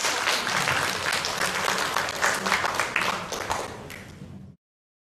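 Audience applauding, the clapping thinning and fading from about three seconds in, then cut off suddenly.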